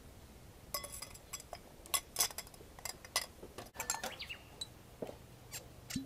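Homemade clear ice cubes handled with tongs and put into a thin-walled glass: a run of sharp clinks and knocks, with the glass ringing briefly, then a few lighter ticks near the end.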